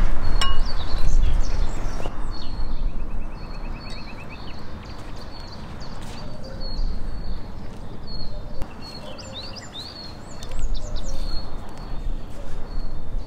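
Small birds chirping and calling repeatedly, with a quick trill a few seconds in, over a steady low rumble that is louder in the first couple of seconds.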